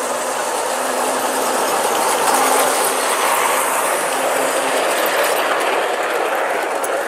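Bachmann G-scale 2-4-2 Lyn model locomotive running past with its train of log cars and a caboose: a steady mechanical whirr of the motor and gears with wheels rolling and clicking on brass track, loudest a little over two seconds in as the locomotive goes by.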